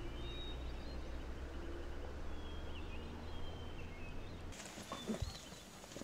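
Faint outdoor ambience: a steady low rumble like wind on the microphone, with thin, high bird calls. About four and a half seconds in it cuts to a brighter, hissier ambience with a few light clicks.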